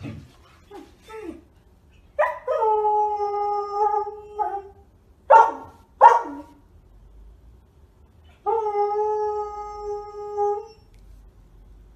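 Samoyed howling: a long, steady howl about two seconds in, then two short sharp yips, which are the loudest sounds, then a second long howl near the end.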